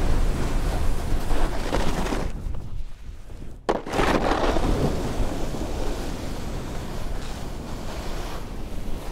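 Snowboard sliding and carving on packed snow: a steady scraping hiss mixed with wind on the microphone. It drops away for about a second a little after two seconds in, then comes back abruptly.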